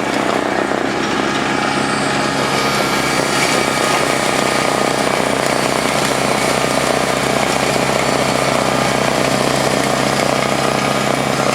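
A 1986 John Deere 856 tractor's engine running steadily under load, driving a PTO-powered two-stage snowblower. The sound grows slightly louder about three seconds in.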